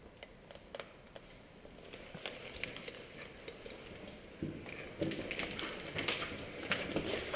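Footsteps scuffing and crunching over a debris-strewn floor, with small clicks of gear. They are faint and sparse at first, then grow louder and more frequent from about four and a half seconds in.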